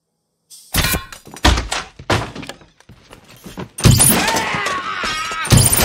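Film sound effects of a shootout: after a short silence, a run of heavy bangs and thuds, about four in two seconds, then a louder crash at about four seconds with a wavering ringing tone, and another bang near the end.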